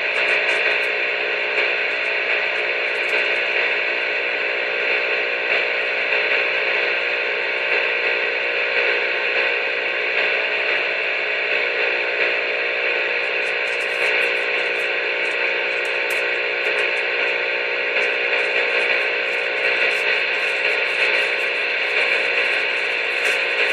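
Steady electronic hum and hiss with several fixed tones, like radio static, holding one level throughout.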